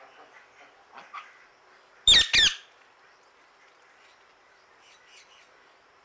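Indian ringneck parakeet giving two loud, harsh squawking calls in quick succession about two seconds in, with a few faint chirps before and after.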